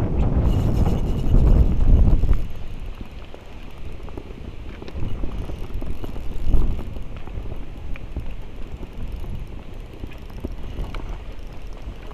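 Wind buffeting the microphone: a heavy low rumble for about the first two seconds, then quieter, with a brief gust about six seconds in.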